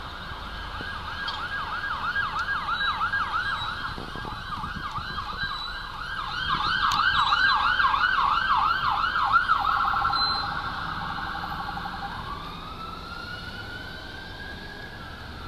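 Police cruiser's electronic siren on a Connecticut State Police Ford Crown Victoria passing at speed. It runs in a fast yelp that is loudest about two-thirds of the way through. Near the end it switches to a brief rapid warble and then a slow rising wail.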